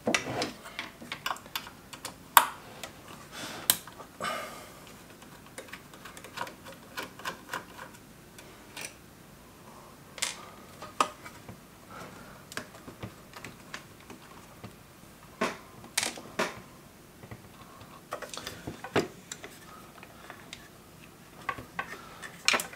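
A hand tool scraping and picking at orange residue on the parts of a car cassette player, giving irregular sharp clicks and short scratches.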